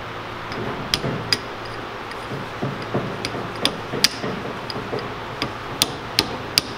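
Light, irregular taps of a brass hammer on a steel punch, driving a small pin into an MG overdrive's planet gear carrier: about a dozen sharp metallic ticks.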